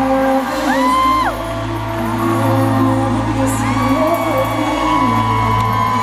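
Arena concert crowd cheering, with a high whoop from a fan close by about a second in, over sustained notes from the band's music through the PA.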